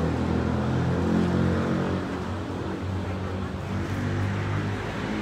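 An engine running steadily nearby, a low hum whose pitch shifts slightly about four seconds in.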